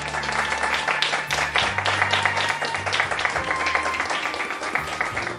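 Audience applause over a violin performance's backing music, which carries a steady bass line underneath. The clapping starts sharply and thins out, and the melody line comes back in about halfway through.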